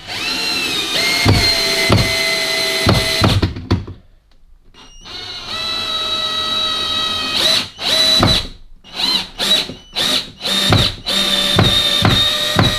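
Workzone 18 V cordless drill driver at low speed driving a long screw into a block of wood: a steady motor whine that stops briefly about four seconds in, then runs again. From about seven and a half to eleven seconds it goes in short stop-start trigger bursts, then runs steadily again near the end. It drives the screw fully home without straining.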